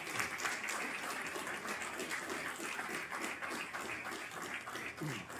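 A room of people clapping together, easing off slightly near the end.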